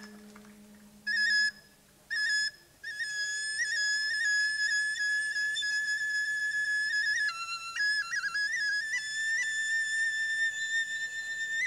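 Balinese suling, a bamboo flute, playing alone: two short high notes, then one long held note with small ornaments and a brief dip to lower notes in the middle. A low gamelan tone fades out at the start.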